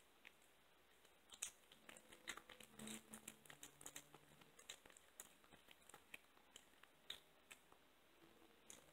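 Faint, irregular wet clicks and smacks of a kitten chewing and licking raw ground chicken, most of them starting about a second in and thinning out near the end.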